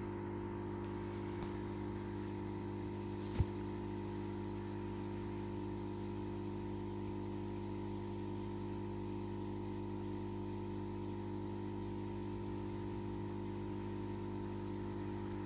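Steady electrical hum made of several constant tones, with one sharp click about three and a half seconds in.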